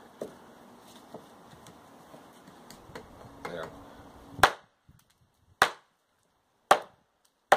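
Hatchet chopping across the grain of a piece of wood, four sharp blows about a second apart starting about halfway through, after some lighter knocks.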